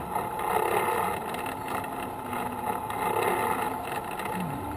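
Engine of a slow-moving ridden vehicle running steadily at low speed.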